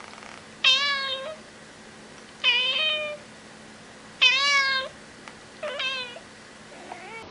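A cat meowing four times, loud calls each about half a second long and spaced a second or two apart.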